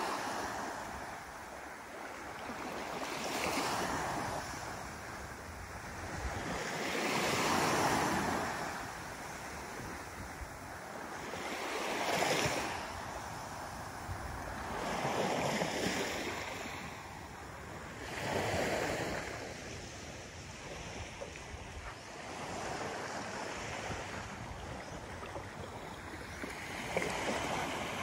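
Small waves breaking and washing up onto a sandy beach, the hiss of surf swelling and fading about every three to four seconds.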